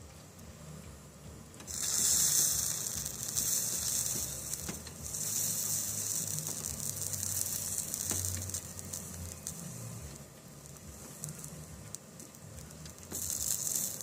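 Hot soldering iron working solder into the lead joints of a stained glass lamp, the flux sizzling. The hiss starts about two seconds in, runs in two long spells, dies down around ten seconds and comes back briefly near the end.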